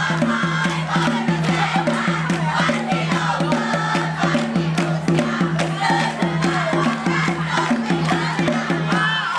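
A cheer squad of many voices singing and chanting a cheer song together over a steady, repeating rhythm from conga-style drums.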